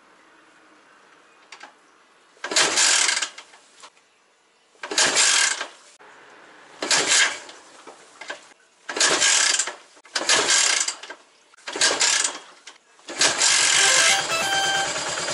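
A Yamaha SR500 single-cylinder four-stroke engine being kick-started. Seven kicks, each a loud rush as the kick lever turns the engine over. On the seventh the engine catches near the end and settles into steady running.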